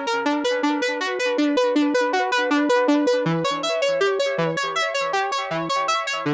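Background music: a synthesizer or electric keyboard playing a quick, steady run of repeated notes.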